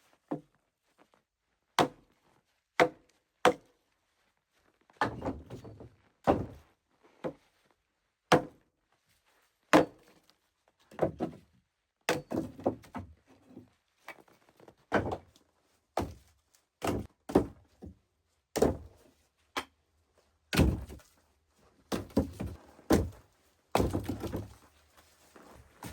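A long series of irregular dull thunks and knocks, roughly one a second. Some are followed by a short rustle or scrape.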